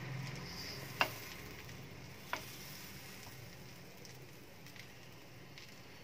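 Butter sizzling faintly in a non-stick frying pan under slices of bread as they toast, slowly fading. Two sharp knocks from the plastic spatula against the pan, about a second in and again just over a second later.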